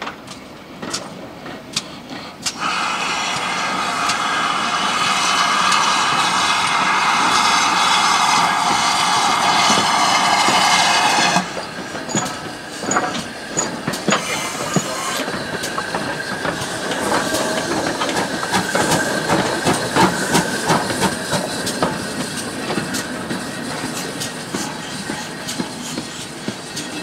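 Steam locomotive hissing loudly and steadily as it lets off steam, cut off suddenly about eleven seconds in. Then GWR Manor class 4-6-0 No. 7802 Bradley Manor rolls slowly past, with its wheels clicking over the rail joints and its motion clanking.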